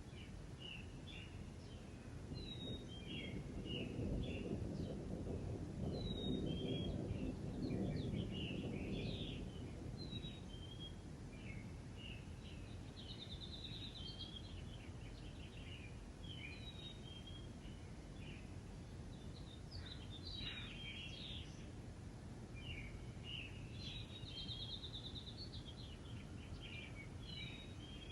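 Several small songbirds chirping and trilling in short, overlapping calls over a steady outdoor background hiss. A low rumble swells in from about three seconds in and fades by about ten seconds.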